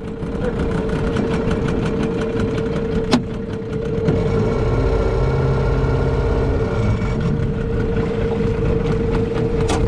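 Outboard motor of a small aluminium boat running steadily, picking up a little about four seconds in, with a sharp click about three seconds in.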